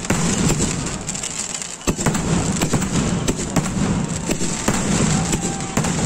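Firecrackers going off in a dense, continuous crackle, with many sharp cracks and bangs at irregular intervals, several a second at times.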